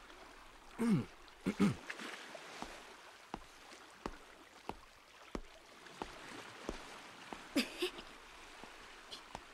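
Footsteps walking at a steady pace, about one and a half steps a second, over a faint steady hiss. Two short wordless voice sounds come near the start and another near the end.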